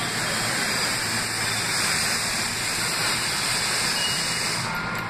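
Westinghouse-Amrail R68 subway train braking into a station: a steady loud rush of wheels and brakes on the rails with a low motor hum underneath. The high hiss cuts off near the end as the train comes to a stop.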